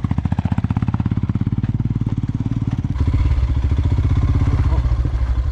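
Motorcycle engine running with a steady, rapid pulsing beat as the bike climbs a rocky dirt track. About three seconds in, it becomes louder and deeper.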